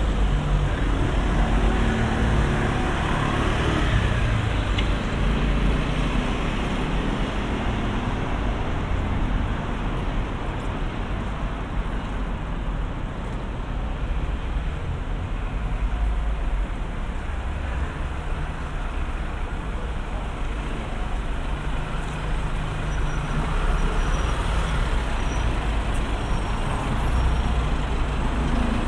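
Road traffic: motor vehicle engines running and passing steadily, with a deep engine hum throughout.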